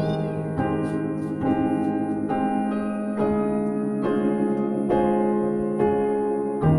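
Background piano music, slow, with a new note or chord struck about every second.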